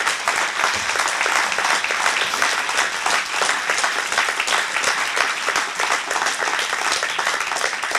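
Audience applauding in a hall: many hands clapping at a steady level.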